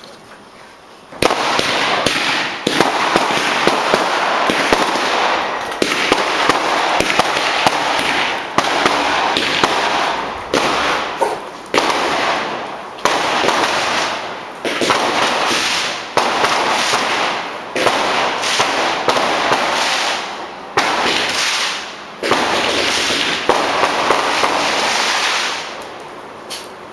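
Fireworks going off in rapid strings of crackling bangs, starting suddenly about a second in and coming in dense bursts a few seconds long, each dying away, until near the end.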